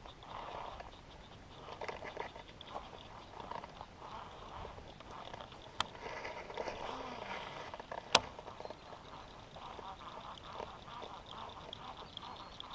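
Waterfowl quacking repeatedly, with a single sharp click about eight seconds in and a fainter one about two seconds before it.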